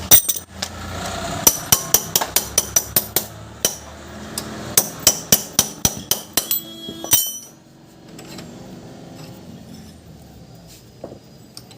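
Metal hammer blows on a flywheel puller fitted to a motorcycle's magneto rotor, to break the rotor free of its tapered crankshaft end. About two to three sharp metallic strikes a second for roughly seven seconds, then they stop and it goes much quieter.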